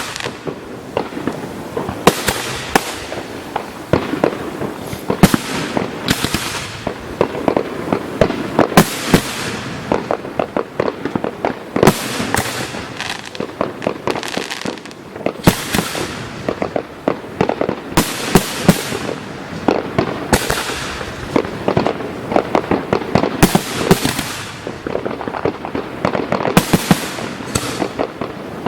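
Professional fireworks display going off in rapid succession: dense sharp bangs, several a second, with hissing and crackling tails between them and no let-up.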